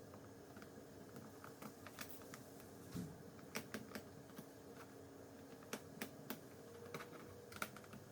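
Faint, irregular small clicks and taps of a screwdriver working the screws out of a Lenovo IdeaPad 700-15ISK laptop's casing.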